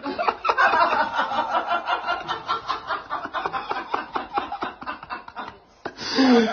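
A person laughing in rapid, repeated bursts, breaking off briefly near the end and then starting again.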